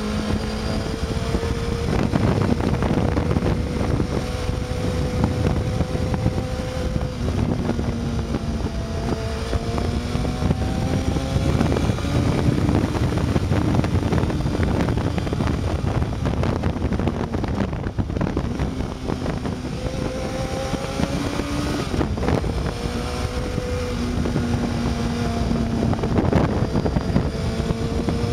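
Honda CBR600 F2's inline-four engine running at speed, its pitch rising and dropping back several times with the throttle. It sits under heavy wind rush on the microphone.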